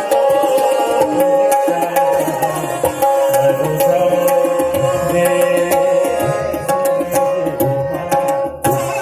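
Kathak dance accompaniment: tabla playing a steady rhythm over a melodic instrument holding long, sustained notes.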